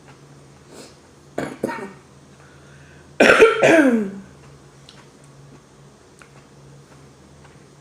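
A woman coughing while eating: two short coughs about a second and a half in, then a longer, louder cough with a falling voice about three seconds in.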